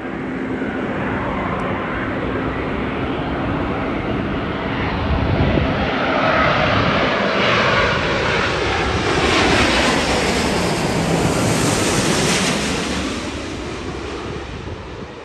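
Airbus A350 airliner on landing approach flying low overhead, its twin Rolls-Royce Trent XWB turbofans growing louder. The engine sound is loudest through the middle and drops in pitch as the aircraft passes, then fades near the end.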